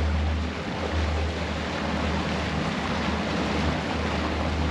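Twin outboard motors running steadily at low speed, with the boat's wake rushing and wind buffeting the microphone.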